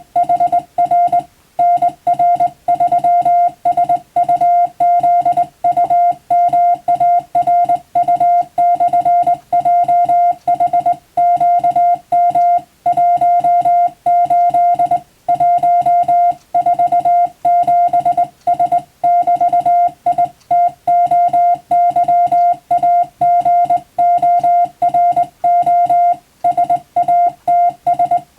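Morse code sent as a single steady beep keyed on and off in fast dots and dashes, with short pauses between letters and words: telegraph-key sending practice of English-text telegrams for the radiotelegraph operator exam.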